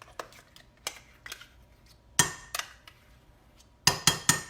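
A spoon clinking and knocking against a bowl as dressing ingredients are scooped in: a few separate knocks, the loudest a little past the middle, then a quick run of four near the end.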